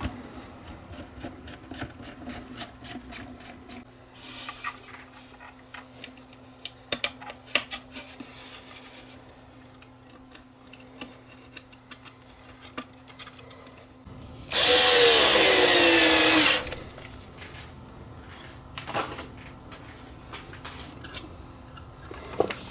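Power drill running in one burst of about two seconds, its pitch falling as it slows. Around it are light clicks and rattles from handling screws and parts.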